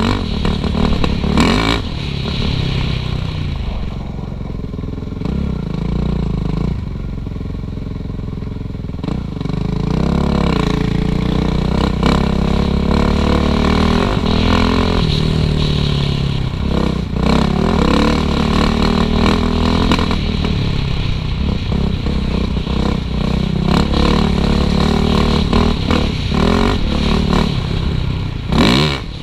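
Suzuki RM-Z450 four-stroke single-cylinder dirt bike engine running hard on a trail, its revs rising and falling over and over, with frequent clattering knocks from the bike over rough ground.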